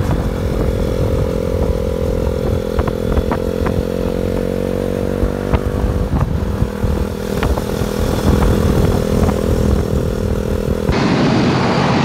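Motorcycle engine running at a steady cruise with wind and road noise, its pitch rising slightly about halfway through. Near the end the sound changes abruptly to a rougher rush of wind and engine.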